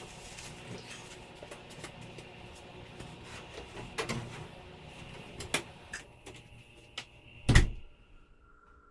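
Light clicks and knocks of things being handled, then a door or cupboard shutting with one loud knock near the end.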